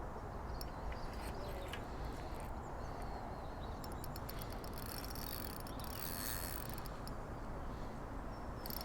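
Fishing reel ratcheting as a hooked fish is played, with a quick run of clicks about halfway through and a few more near the end, over a steady low rumble.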